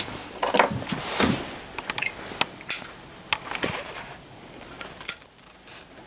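Scattered metallic clicks and clanks from handling a 1-pound propane cylinder and its regulator fittings, with a short hiss about a second in.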